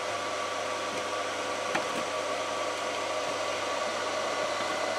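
Induction heater built from a converted welding inverter running steadily at low power: a steady fan-like hiss with a few faint steady tones over it. A light tap just under two seconds in.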